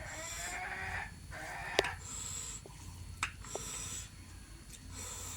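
Eating sounds of rice and curry eaten by hand: chewing and mouth noises, with a few sharp clicks about two, three and three and a half seconds in.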